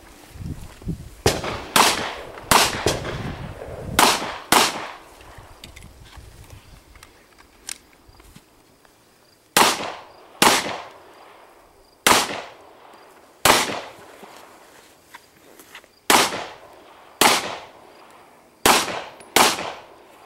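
Pistol shots on an outdoor range: about a dozen sharp reports, mostly fired two at a time, with a pause of several seconds in the middle while the shooter moves to a new position.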